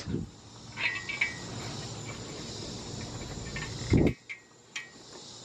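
Insects chirping steadily in the background, with a few short clicks and one low thump just before four seconds in.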